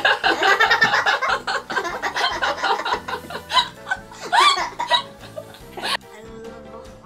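A woman and a young boy laughing hard together, with one loud rising whoop of laughter near the middle, over background music. The laughter stops about six seconds in, leaving the music.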